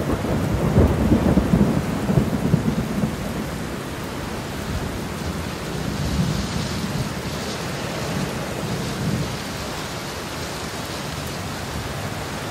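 Steady heavy rain with a low rumble of thunder, loudest in the first three seconds and then fading into the rain.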